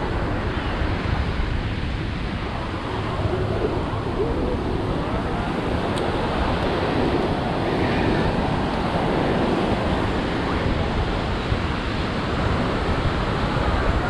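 Ocean surf washing onto a sandy beach, a steady rush of waves with wind on the microphone.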